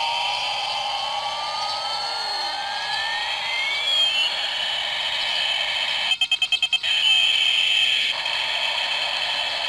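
Toy Scorpion gunship helicopter playing its electronic sound effects through a small tinny speaker: a siren-like tone that dips and then sweeps up over a few seconds, above a steady high whine. About six seconds in comes a quick rattle of about eight rapid pulses.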